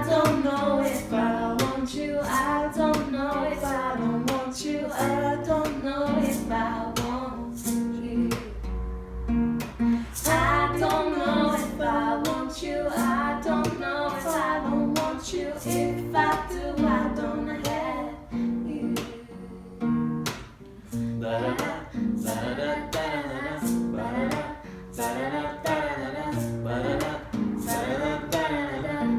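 Strummed acoustic guitar with a woman singing over it.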